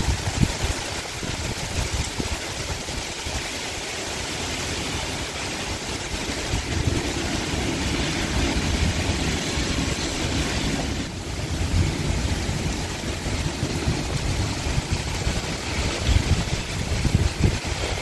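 Heavy rain pouring down in a summer thunderstorm, a steady dense hiss, with an uneven, gusty low rumble of wind underneath.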